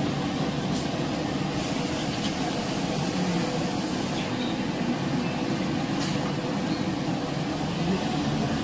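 Kitchen extractor fan running with a steady hum, with a few faint clicks.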